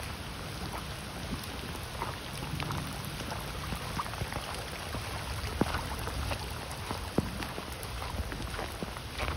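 Rain falling, with many small drops tapping close by and two sharper taps a little past the middle, over a low rumble.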